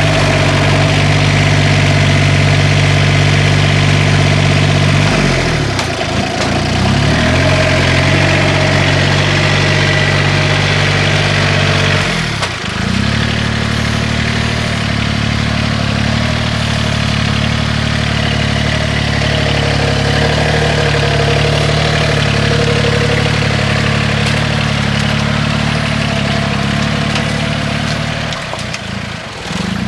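Engine of a large Yanmar ten-row riding rice transplanter running steadily while it plants. Its pitch dips and recovers a few times.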